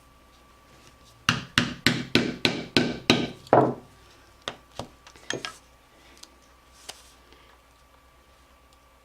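A mallet striking a leather punch through a leather strap: about eight sharp, even blows at roughly three a second, followed by a few lighter taps.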